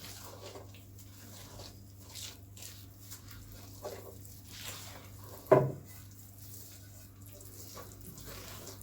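Hands mixing and pressing crumbly biscuit dough in a bowl: soft, irregular rustling and squishing, with one short thump about five and a half seconds in.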